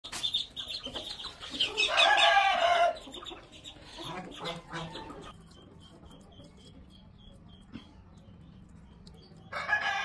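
Domestic chickens calling: hens clucking, with a rooster crowing loudly about two seconds in. Later the calls die down to faint, evenly repeated high chirps.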